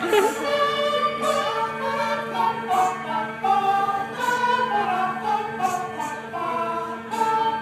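A cappella vocal group singing unaccompanied in close harmony: several voices hold and shift sustained chords over a steady low note, with short hissing 's' sounds marking a beat about every second and a half.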